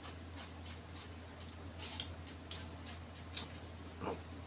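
Quiet eating sounds: a metal spoon scraping and clicking in a styrofoam takeaway container, with scattered small mouth clicks. The sharpest click comes about three seconds in.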